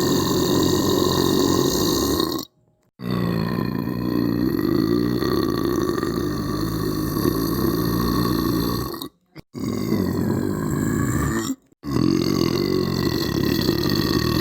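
A person belching: long, drawn-out, deep belches one after another, each breaking off suddenly into a brief silence. One belch ends about two and a half seconds in, the next lasts about six seconds, a shorter one follows, and another runs on near the end.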